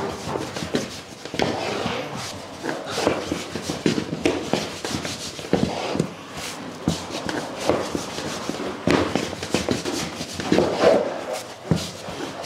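Slim wooden rolling pin rolling and knocking on a floured wooden board as dough rounds are rolled out into wrappers: a quick run of light wooden clacks and taps.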